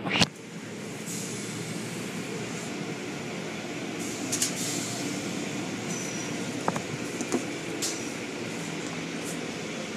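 Automatic car wash heard from inside the car: water spray and cloth brushes working over the body and windows make a steady din. There is a sharp knock right at the start and a few lighter knocks later.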